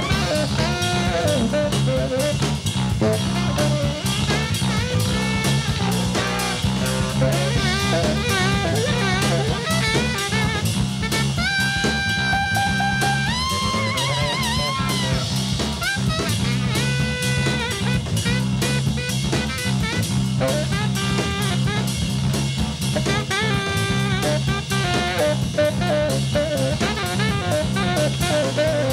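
Live funk band playing an instrumental passage: drum kit, bass guitar and electric guitar, with a lead line that holds long, wavering notes around the middle.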